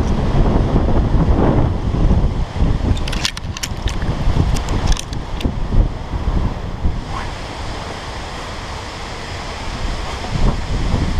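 Strong gusting wind buffeting the microphone with a heavy low rumble, and a few sharp clicks about three to five seconds in. The gusts ease about seven seconds in and pick up again near the end.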